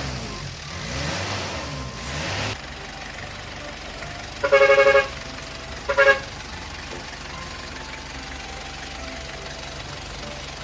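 Simulated truck engine sound revving up and down, cutting off after a couple of seconds and settling to a steady idle. Two short horn honks come partway through, the first about half a second long and the second briefer, and they are the loudest sounds.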